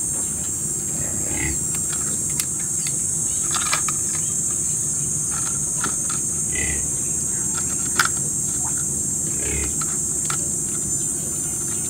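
Steady high-pitched chorus of insects, such as crickets or cicadas, with scattered sharp clicks and knocks and a short call recurring about every three seconds.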